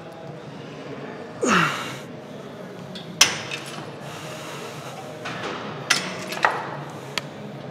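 Cable crossover machine in use: a short grunt that falls in pitch about a second and a half in, then sharp metallic clinks of the cable handles and clips, four of them, the last three close together near the end.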